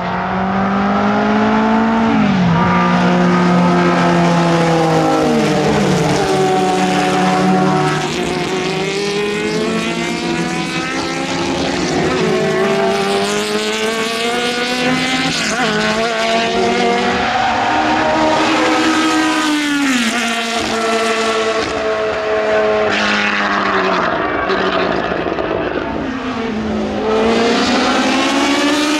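Early-1970s Formula 2 racing cars, among them the March 722, passing at racing speed: engines revved hard, the pitch climbing and then dropping sharply again and again as the cars change gear and go by.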